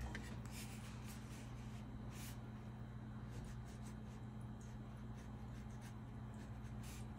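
A few soft rustles and scratches of a hand and fine brush moving on watercolour paper, over a steady low electrical hum.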